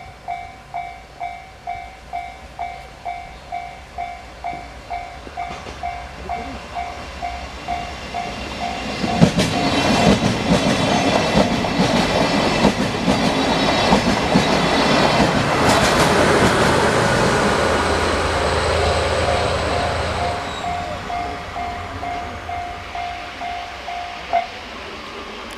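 Japanese level-crossing warning bell ringing in an even electronic ding, about two and a half strikes a second. About nine seconds in, a train runs through the crossing, its wheels clacking over the rail joints and drowning out the bell for several seconds. As the train fades, the bell is heard again and stops shortly before the end.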